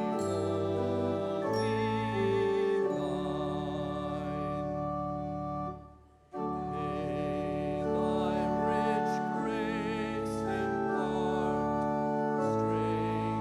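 Church organ playing slow, sustained chords, with a brief break about six seconds in before it picks up again.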